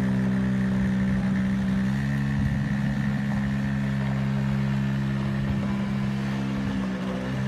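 Small four-wheeler (ATV) engine running steadily as the quad drives around, its pitch dipping briefly near the end.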